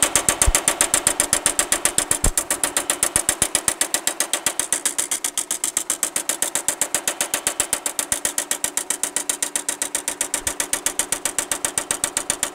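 Baileigh MH-19 variable-speed power hammer striking a sheet of 16-gauge mild steel between its dies: rapid, evenly spaced blows, roughly ten a second, as rolled-in beads are hammered back toward flat.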